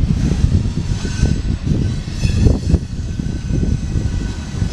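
Loaded CSX coal hopper cars rolling past on the rails: a loud, steady low rumble with uneven clatter of wheels over the track.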